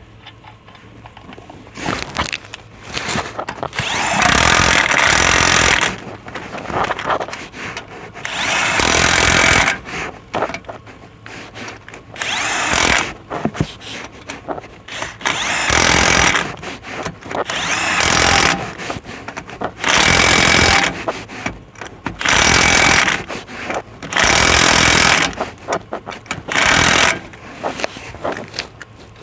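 Power tool tightening the wheel's lug nuts, run in about ten short bursts of one to two seconds each, with rattling between bursts.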